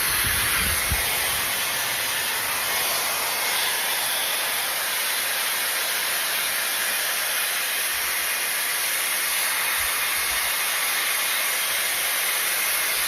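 Shark FlexFusion hair styler running with its air-wrap curling barrel, a steady whoosh of hot air blowing as a curl is wound and held.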